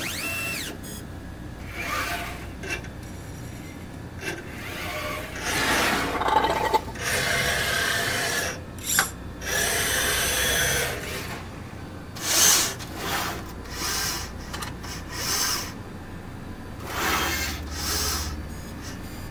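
Liquid-handling robot's gantry and pipetting arm moving in a series of short mechanical runs, each about a second long with pauses between, some with a faint high whine.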